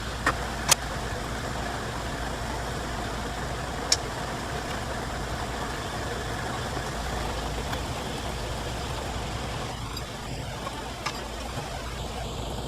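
A machine running with a steady hum, with a few sharp clicks or taps, the loudest just under a second in and another about four seconds in.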